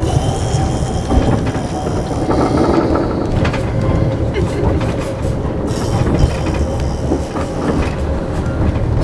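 A moving railway carriage heard from inside the compartment: a steady running rumble with the clatter and knocks of the wheels over the track.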